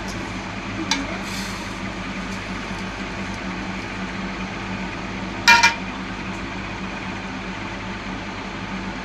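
Steady low hum with a light click about a second in and one sharp, ringing metal clink about five and a half seconds in, a utensil striking a cooking pot.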